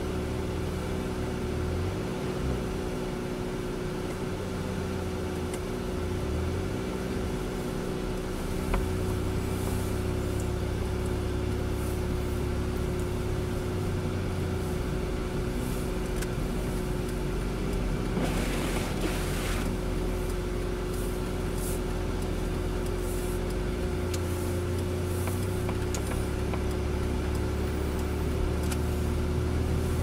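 Car driving slowly on a snowy road, heard from inside the cabin: a steady engine hum and road noise, with a single click a little before 9 s and a brief hiss around 18 s.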